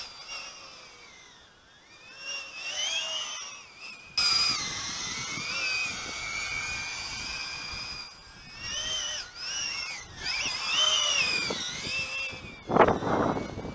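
Eachine Aurora 90 micro FPV quadcopter's motors whining in flight, the pitch gliding up and down with the throttle and the sound fading and swelling as the quad flies away and back. Near the end comes a loud rushing sound.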